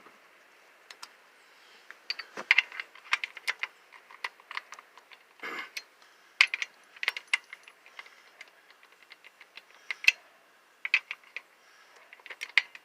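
Metal hand tools clinking and rattling as they are handled, in irregular clusters of light clicks.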